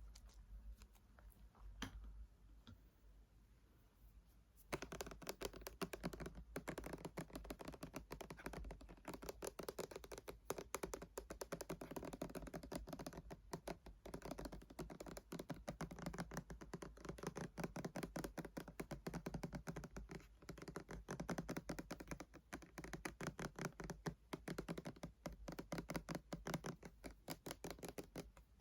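Fingernails tapping on hard plastic or glass objects for ASMR: a few scattered taps at first, then from about five seconds in a fast, continuous run of light clicking taps.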